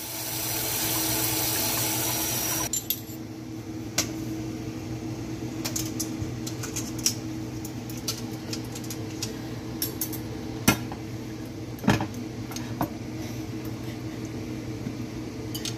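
Metal utensils clinking and scraping against a stainless steel colander and plate as cooked penne is scooped out, in scattered light clicks with a few sharper knocks. A steady hiss at the start cuts off suddenly about three seconds in, and a low hum runs underneath.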